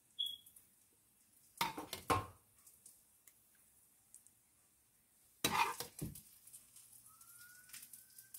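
Metal ladle clinking against a pot and plate while sauce is spooned over a dish: a short ring at the start, then two clusters of knocks, about two seconds in and again about five and a half seconds in.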